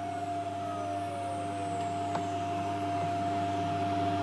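CNC machine running with a steady hum, slowly growing louder. A tone falls in pitch over the first few seconds, and there is a single click about two seconds in.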